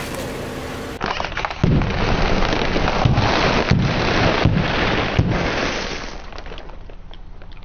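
Car tyre rolling over a row of sealed snack bags on asphalt: about half a dozen loud pops as the bags burst, with the crunch of the crisps and puffs being crushed. The sound fades after about six seconds as the wheel rolls on.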